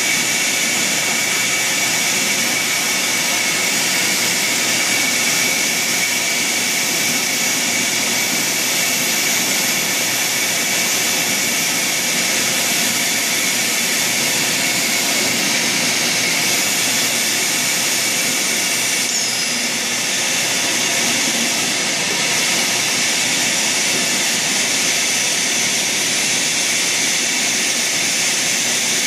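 Blow moulding machine for plastic drums running in a factory: a loud, steady hiss and hum with a steady high whine that does not change.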